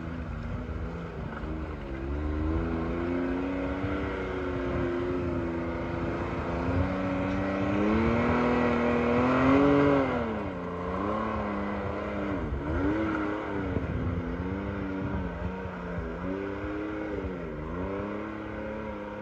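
Can-Am Maverick X3 side-by-side's turbocharged three-cylinder engine revving up and down under load as it climbs a steep muddy rut. The revs build to the loudest point about halfway through, fall away sharply, then come in a string of quick throttle blips.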